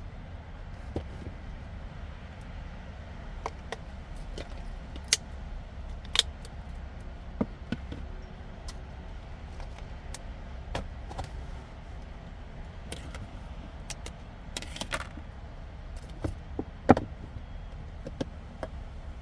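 Scattered sharp clicks and knocks at irregular intervals over a steady low rumble, the loudest knock near the end.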